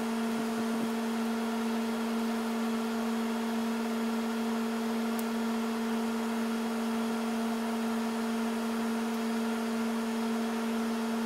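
Steady electric hum of a shop fan: one unchanging low pitch with its overtones over a soft airy hiss.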